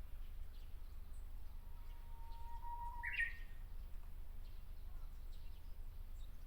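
Japanese bush warbler (uguisu) singing once: a long held whistle that swells, then flips up into a short sharp rising flourish about three seconds in, the opening of its "hoo-hokekyo" song.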